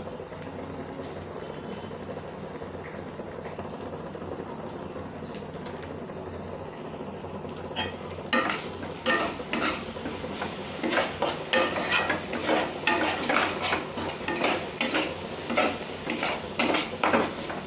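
Onion masala frying in oil in a kadai, a steady faint sizzle. About eight seconds in, a metal spatula starts stirring it, scraping and clinking against the pan about two or three times a second.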